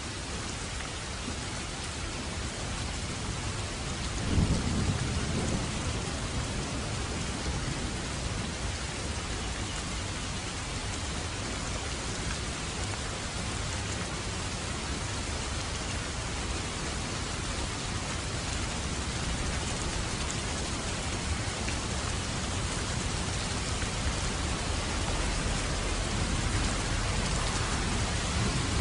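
Steady rain falling, with a low rumble of thunder about four seconds in.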